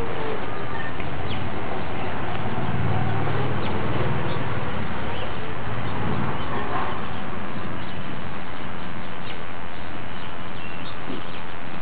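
Steady background noise with faint, scattered bird chirps.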